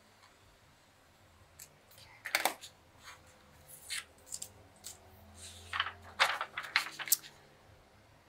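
Hands handling paper and a metal straightedge ruler on a cutting mat: a scattering of sharp clicks and knocks, the loudest about two seconds in, with more between about four and seven seconds in.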